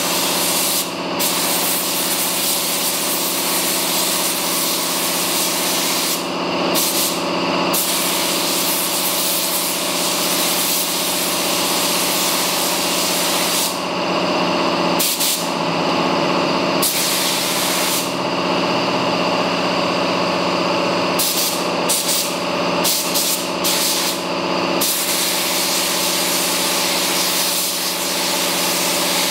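Compressed-air paint spray gun spraying paint: a steady hiss that breaks off briefly several times as the trigger is let go, over a steady hum.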